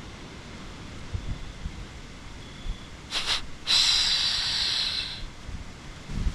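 A hunter's imitation of a whitetail buck's snort-wheeze: two quick hissing puffs followed by a longer drawn-out hiss of about a second and a half. It copies the aggressive challenge call of a rutting buck.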